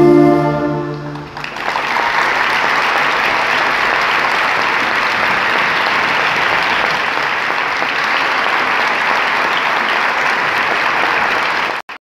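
A brass-and-saxophone wind band holds its final chord, which dies away about a second in. Steady audience applause follows and cuts off suddenly near the end.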